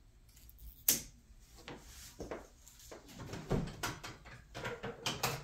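Household items being handled and set down on a wooden dining table: a sharp click about a second in, then a run of light knocks and rustling.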